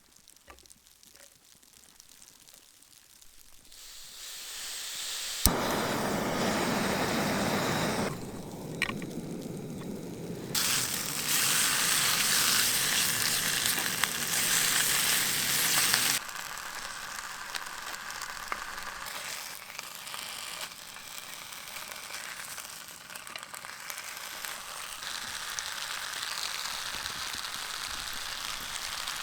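Food sizzling in a pan on a camp stove. It is faint for the first few seconds, then after a sharp click it sizzles loudly for about ten seconds before settling to a softer, crackly sizzle.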